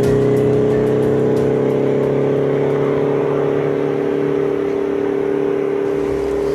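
Background music: a steady, droning held chord with no beat.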